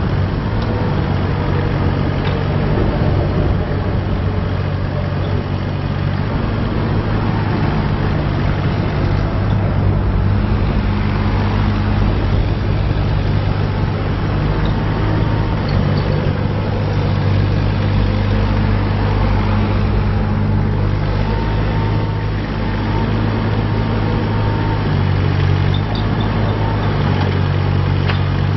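Terex TC16 mini excavator's diesel engine running steadily, its tone shifting slightly now and then as the load changes, with a faint high whine coming and going in the middle stretch.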